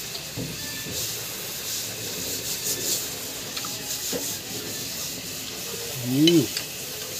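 Close-up chewing and wet mouth noises of a person eating boiled squid, with small clicks and smacks scattered throughout. About six seconds in comes the loudest sound, a short closed-mouth 'mm' that rises then falls in pitch.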